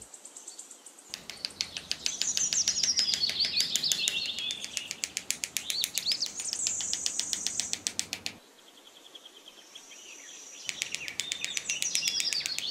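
A small wooden mallet taps rapidly and lightly on thin wooden sticks, driving them into sand, while birds chirp over it. The taps and birdsong cut off abruptly about eight seconds in and start again about two seconds later.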